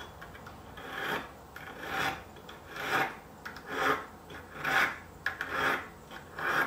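A hand file rasping the edge of a silver spoon held against a wooden bench pin, in slow even strokes about one a second.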